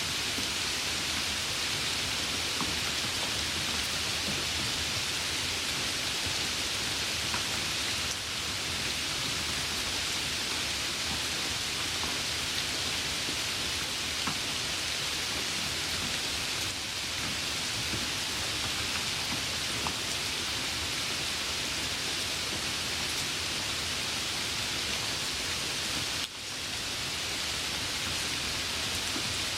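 Light rain falling steadily, an even hiss with a few faint individual drop ticks, dipping briefly in level three times.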